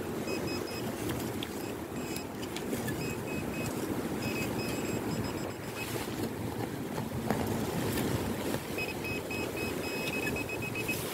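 Handheld metal-detecting pinpointer beeping in runs of short, rapid high pulses as it is probed into a dig hole, over a steady low rush of wind on the microphone.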